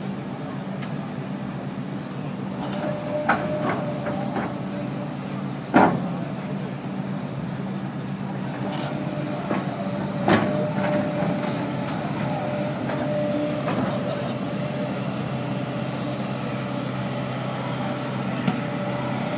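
Link-Belt 250 X3 hydraulic excavator working: its diesel engine runs steadily, a steady whine comes in about two and a half seconds in, and several sharp clanks are heard, the loudest about six and about ten seconds in.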